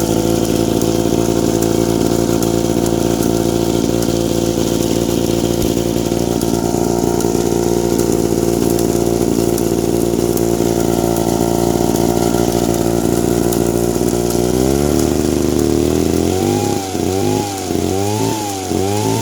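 Vintage Mall 11 two-man chainsaw engine running at a steady speed, then, about three-quarters of the way through, revving up and surging up and down several times. The saw runs well, though the owner says it needs a new throttle.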